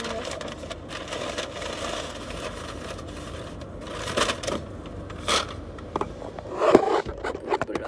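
Close rustling and scraping handling noise, broken by short clicks and a few louder knocks about four, five and nearly seven seconds in.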